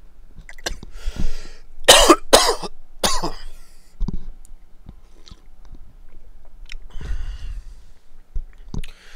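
A person coughing: two sharp coughs about two seconds in and a third a moment later, with breathy throat clearing before and later on.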